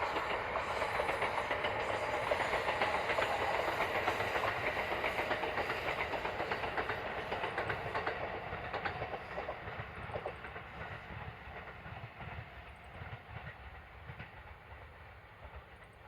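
Kintetsu electric train running past, its wheels clattering over rail joints amid steady running noise, fading away over the second half.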